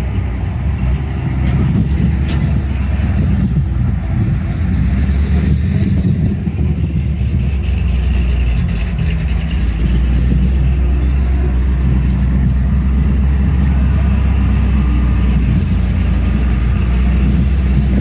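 A vehicle engine running steadily, a constant low rumble.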